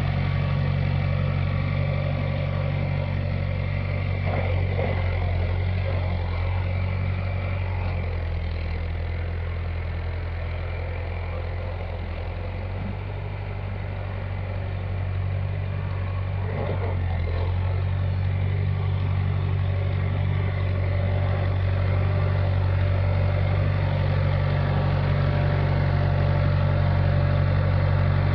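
Early-1970s John Deere backhoe's engine running steadily, easing off slightly about halfway through and then picking back up.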